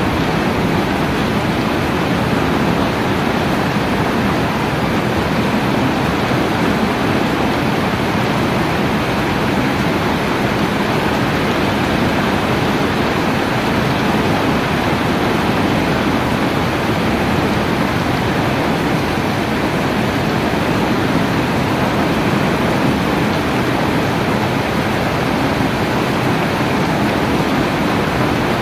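Heavy rain falling steadily: a dense, even hiss with no single drops or other events standing out.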